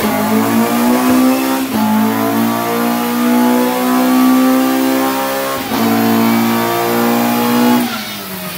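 Modified car engine revved and held at high, nearly steady revs, breaking off briefly twice and dropping back near the end.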